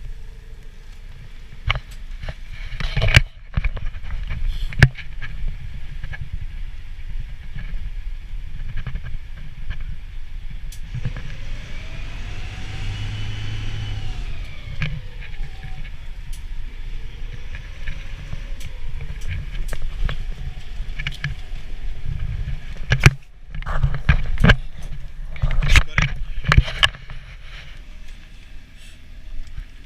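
Small ferry boat's engine running steadily with a low rumble, with loud thumps and knocks a few seconds in and again near the end, and a tone that rises and falls about halfway through.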